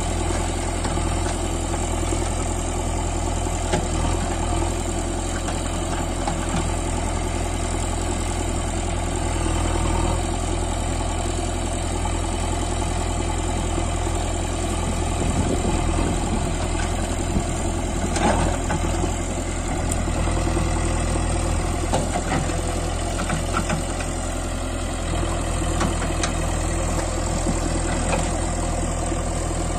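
JCB 3DX backhoe loader's diesel engine running steadily while its backhoe arm digs soil, with a few brief louder moments about halfway through.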